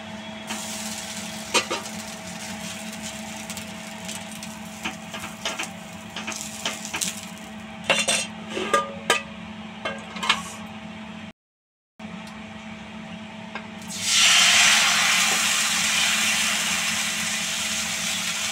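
A steel spatula clinks and scrapes against a cast-iron tawa as a cooked rice-flour ghavan is lifted off, a scattered run of sharp knocks. After a short break, rice batter hits the hot oiled tawa and sizzles loudly, easing off slowly. A faint steady hum runs underneath.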